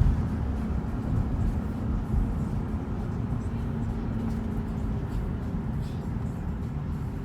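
Steady low rumble of a car driving: road and engine noise with no distinct events.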